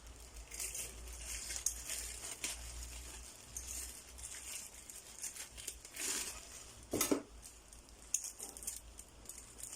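Unpacking sounds: plastic packaging crinkling and grass-cutter accessories such as blades being handled, with small knocks and one sharper knock about seven seconds in.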